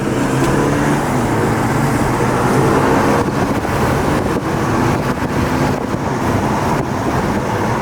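BMW F30 3 Series driving, heard from inside the cabin: engine and road noise, the engine note rising slightly over the first few seconds, with a few brief knocks later.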